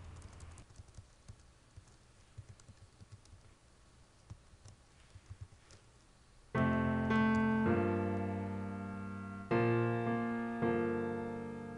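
Faint, scattered computer keyboard clicks from typing. About six and a half seconds in, a piano begins playing slow chords, each one fading out before the next is struck: the introduction of a song.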